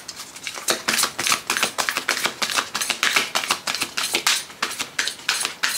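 An oracle card deck being shuffled by hand: a quick, uneven run of light papery clicks and slaps as cards are pushed from one hand into the other, several a second.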